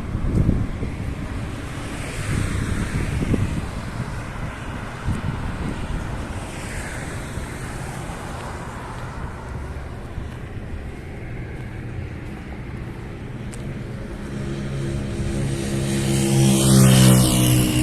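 Street traffic with a motor vehicle driving past close by near the end, its engine growing louder to a peak just before the end.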